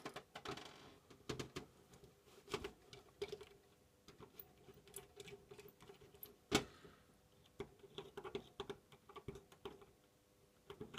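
Small metal and plastic parts of an H0 model locomotive's chassis and motor clicking and tapping as they are handled and fitted together, with a sharper knock about six and a half seconds in.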